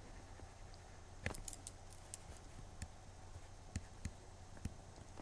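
Faint, irregular clicks and taps of a stylus on a drawing tablet while writing, about eight in all, over a steady low hum.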